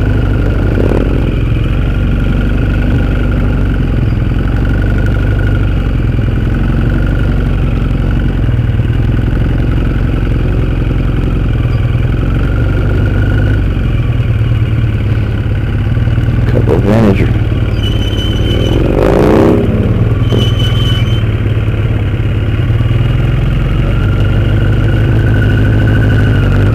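Motorcycle engine running steadily at low speed, a low hum throughout. About two-thirds of the way in come a couple of short sounds that slide up and down in pitch and two brief high squeaks.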